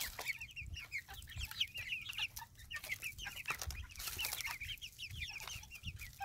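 A flock of young chickens peeping continuously, many short high falling chirps overlapping one another.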